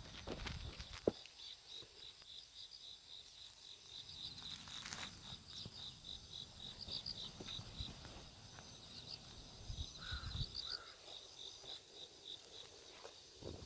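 Insects chirping faintly: a long run of short, high, evenly spaced chirps, about four a second, that stops near the end, with a few low thumps.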